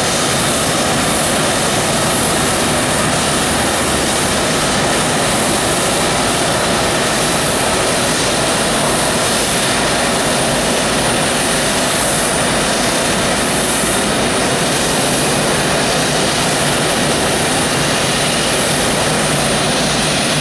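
Boeing 777's twin jet engines running at taxi power as the airliner rolls past: steady, even jet noise.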